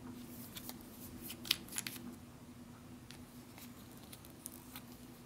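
Small sharp plastic clicks and taps as a squeeze tube of food is handled and its plastic screw cap twisted off, several in quick succession in the first two seconds and a few scattered after.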